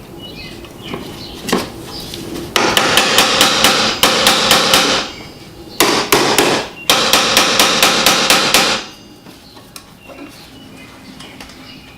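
Rapid hammer taps on a stuck windshield wiper arm, about five strikes a second in three runs of one to two seconds each, knocking loose an arm rusted onto its pivot shaft.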